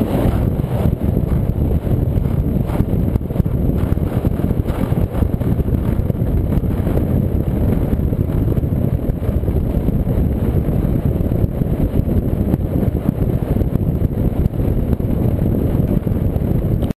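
A Cigarette Gladiator powerboat running at speed: a deep, steady rush of engine and water noise, with wind buffeting the microphone.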